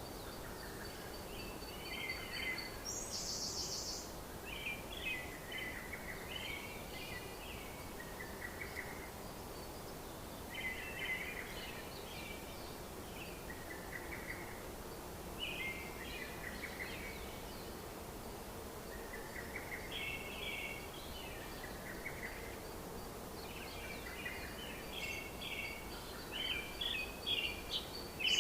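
Birds chirping in short, repeated phrases every couple of seconds over a steady background hiss, with a faint high steady tone at the start and again near the end.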